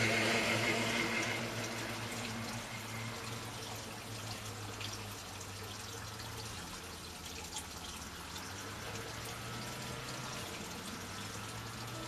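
Water running and trickling steadily, with faint drips and a low steady hum underneath; a louder hiss at the start fades within the first two seconds.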